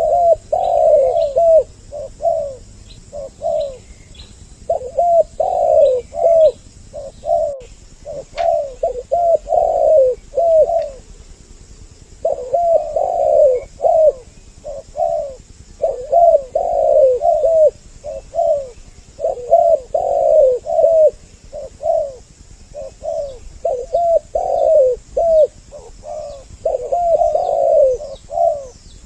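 Spotted doves cooing: phrase after phrase of several coos each, with short pauses between phrases, played as a lure call with two birds' voices. Faint chirps of small birds sound behind them.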